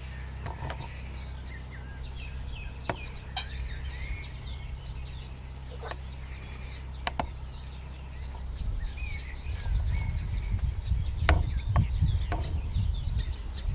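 Outdoor ambience by the water: scattered small bird chirps over a steady low hum, with a few sharp clicks. From a little past halfway, a louder low rumble on the microphone builds as the camera moves.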